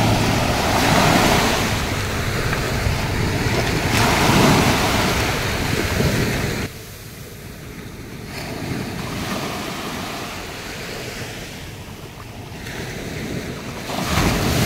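Small waves washing up and breaking on a sandy shore, in surges, with wind rumbling on the microphone. The surf drops away sharply about seven seconds in and swells again with a breaking wave near the end.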